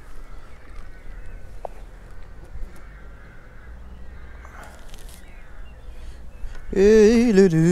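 Low outdoor background, then near the end a man's voice holding a drawn-out, wavering sung or hummed note for about two seconds.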